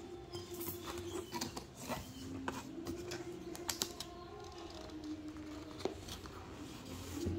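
Hands handling a cardboard shipping box and the paper-banded product box inside it: scattered light clicks, taps and scrapes of fingers on cardboard.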